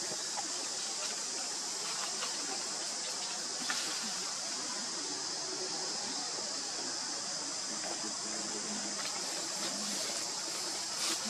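Steady high-pitched drone of an insect chorus, even and unbroken, with a faint tick about four seconds in.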